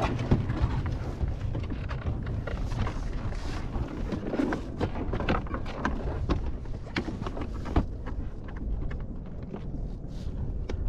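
Wind on the microphone, with a run of irregular small clicks and knocks from crabs and crabbing gear being handled while they are sized.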